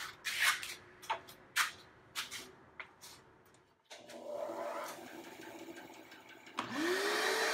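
Scattered clicks and knocks of the cherry board and saw being handled, then a steady hum comes in about four seconds in. Near the end the Grizzly G0555XH 14-inch bandsaw starts, its motor whine rising quickly and levelling off as it comes up to speed.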